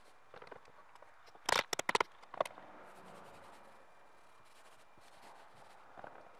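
Paint roller spreading oil-based primer-sealer over a plywood panel, a faint sticky crackle and scrape of the roller. A quick cluster of sharp clicks comes about one and a half to two and a half seconds in.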